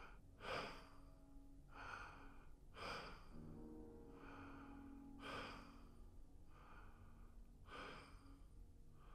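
A man breathing hard and audibly, in and out about once a second, panting as if winded from climbing stairs. Faint background music with steady low tones runs underneath.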